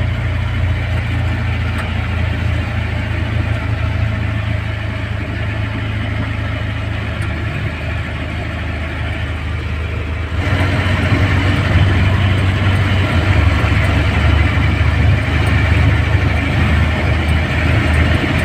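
A passenger jeepney's diesel engine running under way, a steady low drone mixed with road and cabin noise. About ten seconds in, it becomes abruptly louder and fuller.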